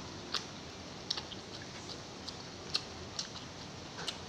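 Close-up chewing of instant noodles: soft, irregular mouth clicks and smacks, about a dozen in a few seconds, over a steady hiss.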